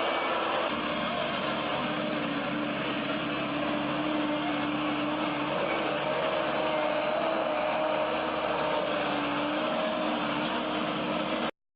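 Steady machinery noise, an engine running with a faint wavering whine over it, that cuts off suddenly near the end.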